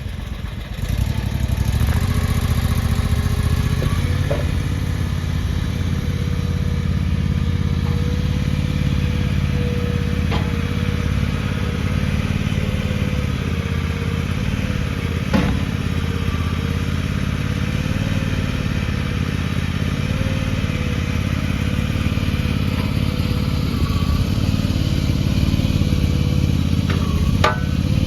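Gas engine of a small AGT MY50R mini excavator running steadily and throttled up about a second in, with a wavering whine of the hydraulics under load as the machine is worked. A few short knocks and clanks are heard, the loudest near the middle.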